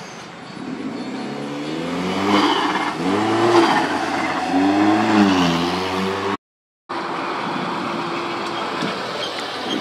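Car engine revving: the pitch climbs and falls back twice, then the sound cuts out for about half a second and resumes as a steady engine sound.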